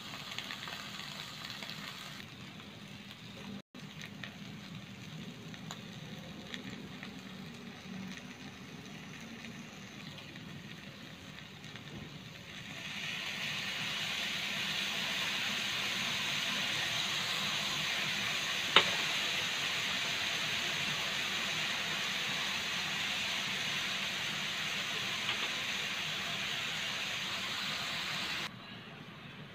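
Egg and bok choy frying in a wok with a quiet, steady sizzle. About halfway through, the sizzle grows louder and hissier as seasoning sauce and dark soy sauce hit the hot pan, with one sharp tap partway through the louder stretch.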